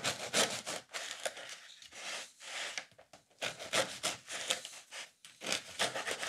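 Serrated bread knife sawing through a loaf of crusty rustic white bread, in a series of uneven rasping strokes.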